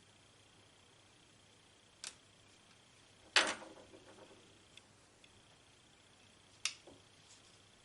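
Three sharp clicks or knocks from handling a small plastic camera and tools on a work surface. The loudest comes about three seconds in and is followed by a brief clattering rattle.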